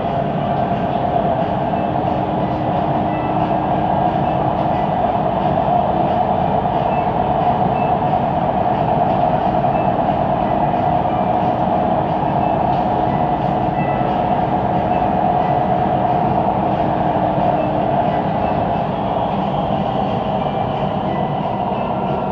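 Siemens Inspiro metro train running between stations, heard inside the carriage: a steady rolling noise with a droning hum, the weird rolling noise of this train.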